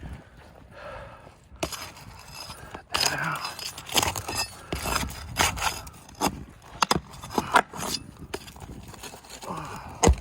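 Irregular scraping, sharp clicks and knocks of a tool prying at roof shingles and their fasteners, working the staples loose.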